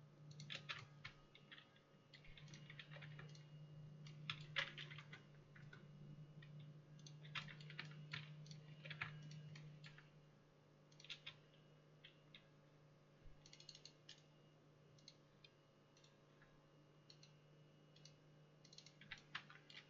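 Faint, irregular clicking of computer keyboard keys in short clusters, over a low steady hum that fades out about halfway through.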